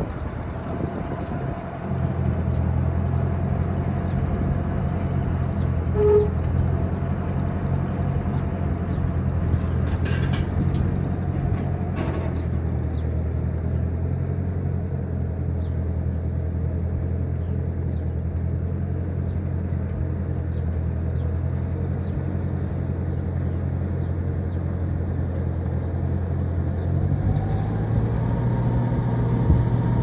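New Holland 1282 Haycruiser self-propelled baler's four-cylinder 170 cubic inch Ford engine running steadily as the baler drives slowly down off a trailer, with a couple of knocks about ten and twelve seconds in. Near the end the engine note changes, it gets louder and a steady higher whine comes in.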